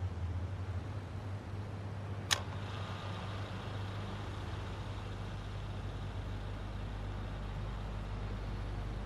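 A car engine idling with a steady low hum, and one sharp click about two seconds in.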